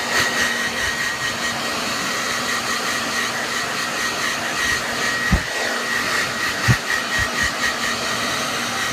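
Hair dryer running steadily, a rushing blow of air with a thin high whine. A few dull thumps fall in the second half.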